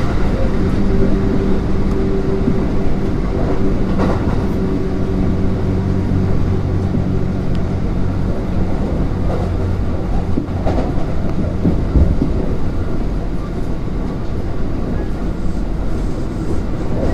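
Kintetsu 3200 series electric train running on the line: a steady rumble of wheels on rail with a low hum that fades about six seconds in, and a few scattered knocks.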